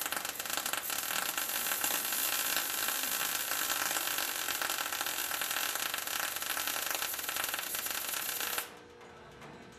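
MIG welding arc on a sheet-steel trunk floor pan, a continuous dense crackle as the new floor is plug-welded to its braces through drilled holes. The arc cuts off abruptly near the end.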